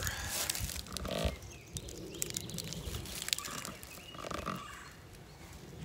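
Irregular rustling and crackling in dry leaves and cut brush, with a few short croak-like sounds.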